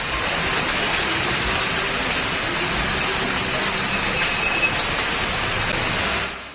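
Heavy rain pouring down on a street: a loud, steady hiss, with traffic driving through the wet road. It fades out near the end.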